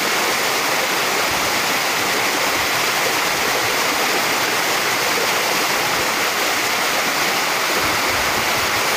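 Small waterfall cascading down rock ledges: a steady rush of falling, splashing water close by.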